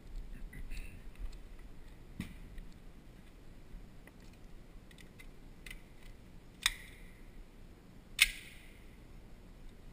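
Light metallic clicks and taps from a pistol and its magazine being handled. Two sharper, louder cracks come about a second and a half apart, the second the loudest, each leaving a short ringing tail.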